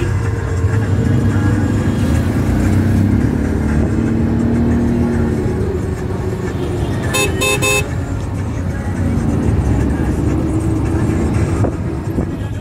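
Road traffic with vehicle engines running in a steady low rumble, and a vehicle horn giving three quick toots about seven seconds in.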